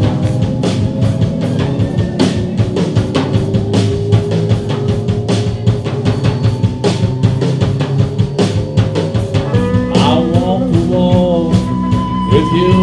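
Live rock band playing: a drum kit keeping a steady, busy beat under bass and electric guitar. About ten seconds in, a lead line of bending, sliding notes comes in and then settles on a long held high note.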